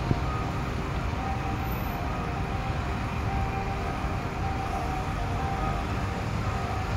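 Church bell tuned to f' ringing, its tones sounding again and again, over a steady low rumble.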